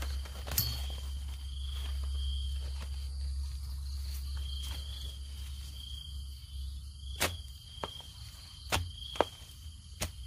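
A digging tool strikes soil while banana suckers are being dug out: one sharp knock about half a second in, then five knocks in the last three seconds. Behind it a high insect chirp repeats and a low rumble runs steadily.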